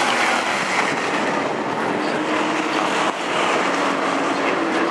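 A pack of DARE Stock race cars running at speed around the oval, their engines blending into a loud, continuous drone.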